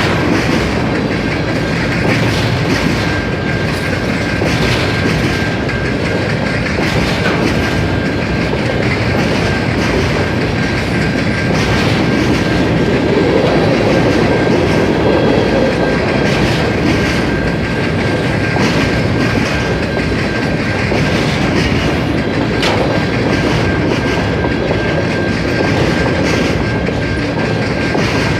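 CN freight train rolling past: a steady rumble of railcars with irregular clacks of wheels over the rail joints, and a thin, steady high whine.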